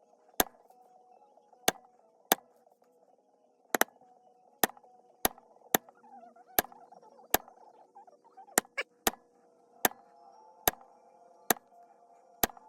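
Basket weave leather stamp struck with a mallet into cased veg-tan leather: a string of sharp taps, roughly one to two a second at an uneven pace, over background music.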